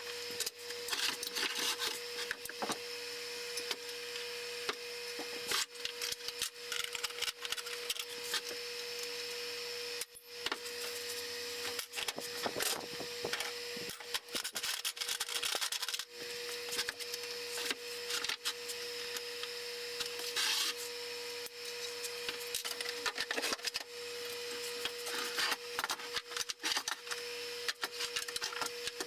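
Hand tools and band saw parts being handled during disassembly: irregular clicks, knocks and scrapes over a steady faint hum.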